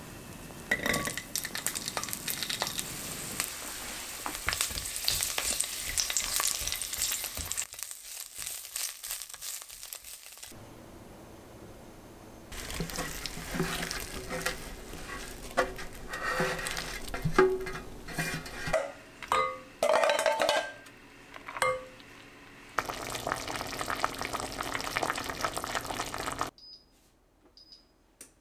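Chopped vegetables sizzling and crackling in hot oil in a pan, with a spatula stirring and scraping against the pan and the odd clink of utensils. The sizzle drops away briefly partway through and stops near the end.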